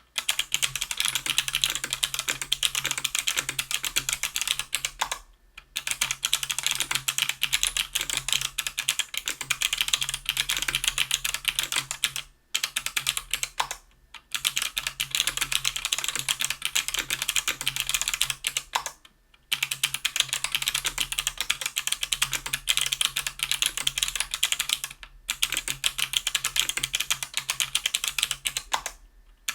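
Fast typing on a KBDfans Tofu 60% aluminum keyboard with an aluminum plate, stock Kailh BOX Crystal Navy 90 g clicky switches and GMK keycaps. The typing comes in long runs of rapid keystrokes, broken by several short pauses.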